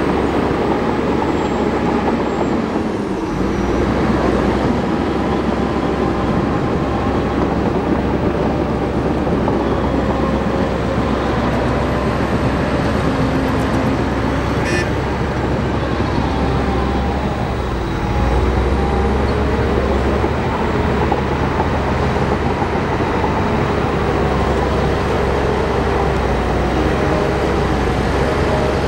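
Crawler bulldozer's diesel engine running continuously at work, a deep steady drone with some rising and falling squealing tones over it. It gets a little louder about 18 seconds in.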